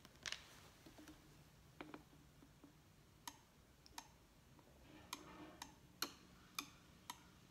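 About ten faint, sharp plastic clicks and taps, roughly one every half second to second, as food colouring is squeezed drop by drop into a plastic water bottle.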